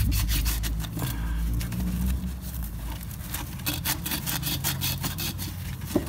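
Sandpaper scrubbing back and forth on the copper suction stub of a refrigerator compressor, quick scratchy strokes in irregular runs. This cleans the copper for brazing.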